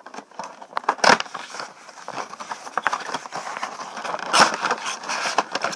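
Cardboard Funko Pop box being opened by hand: a run of scraping, rustling and crackling packaging with many small clicks, and two louder scrapes about a second in and a little past four seconds.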